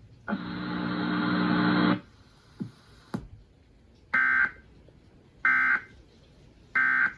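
Emergency Alert System end-of-message: three short, identical bursts of SAME data tones about a second and a half apart. They follow a buzzy sound of about a second and a half that grows louder near the start.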